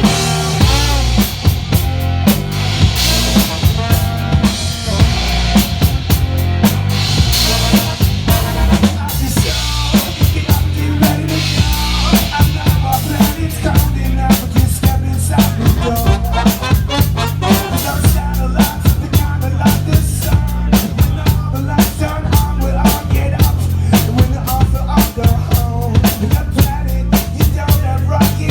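Rock band playing live: drum kit with steady bass drum and snare hits over a bass line.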